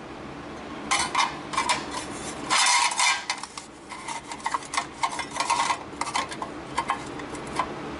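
Loose pieces of sheet metal clinking and clattering as they are handled and set down, in irregular bursts of sharp metallic clanks, loudest around the third second.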